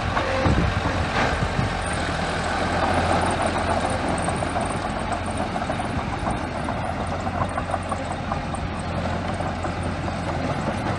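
Small bulldozer's diesel engine running steadily, with a sharp knock about a second in.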